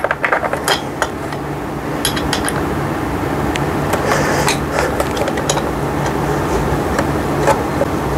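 Scattered light clicks and clinks of metal and plastic parts as a toddler tricycle's seat is fitted and fastened by hand, over a steady background hum.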